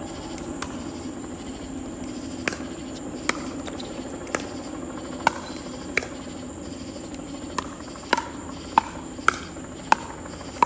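Pickleball rally: sharp pops of the plastic ball off paddles and the hard court, about one a second at first and coming quicker near the end.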